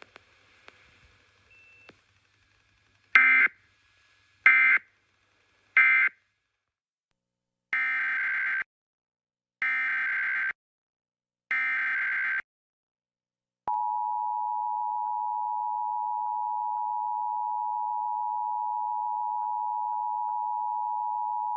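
Emergency Alert System signalling. First come three short digital data bursts, the end-of-message code. Then three longer data bursts of about a second each, the SAME header. About two-thirds of the way in, the steady two-tone EAS attention signal starts.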